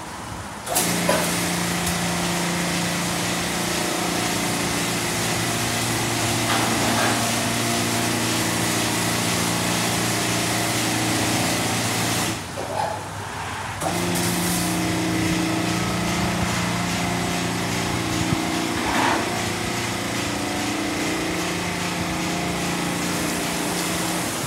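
PDQ car wash dryer blowers starting up about a second in and running steadily, a rushing blast of air with a low motor hum. They cut out briefly about halfway through and start again a second and a half later.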